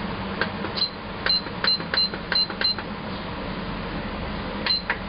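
Digital kitchen timer beeping as its buttons are pressed to set it for about five minutes: short high beeps, six in quick succession and then one more near the end, each with a faint button click.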